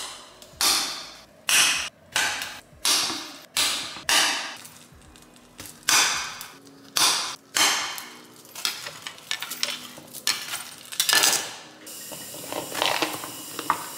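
Serrated kitchen knife chopping baby potatoes straight on a hard countertop, with no cutting board: a sharp knock as each cut hits the counter, about one every 0.7 s, then lighter, quicker taps in the second half.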